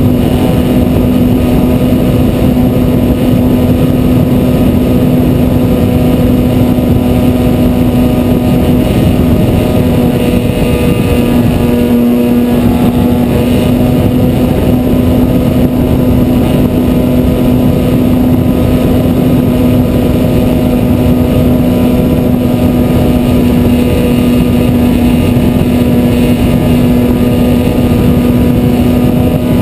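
Electric motor and propeller of a ParkZone T-28 Trojan RC plane, heard from a camera mounted on the plane in flight: a steady hum with a strong rush of wind noise, its pitch shifting slightly about twelve seconds in. The stock motor is working hard against the extra drag of the camera.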